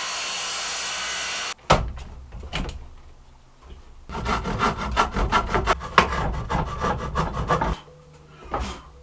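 A power tool running steadily cuts off abruptly about a second and a half in, followed by a couple of knocks on wood. Then a pine board is hand-sawn in quick back-and-forth strokes for about four seconds, and there is one more knock near the end.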